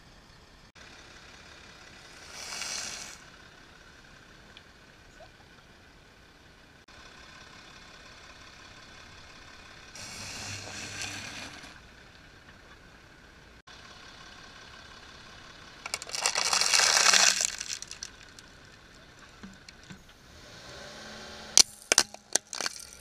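A car tyre rolling over and crushing things on asphalt: short bursts of crunching and tyre noise a few times, then a quick series of sharp cracks near the end as the tyre breaks a plastic toy.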